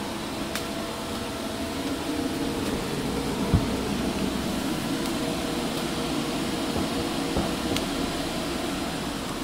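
Steady whirring hum of a parked electric minibus's ventilation fans running, with one short thump about three and a half seconds in.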